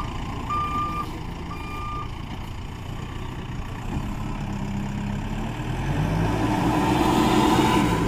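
Mahindra SX backhoe loader's reversing alarm beeping twice, about a second apart, then stopping; its diesel engine then revs up and grows louder as the loader drives forward and pushes its front bucket into a heap of sand.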